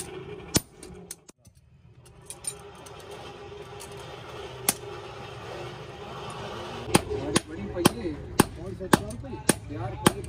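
Hammer blows on red-hot leaf-spring steel on an anvil: a few single sharp strikes, then from about seven seconds in a steady run of blows, about two a second. A steady low hum runs underneath.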